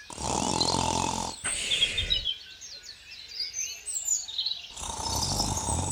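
Two long snores, one in the first second and a half and another near the end, with birds chirping in the quiet between them.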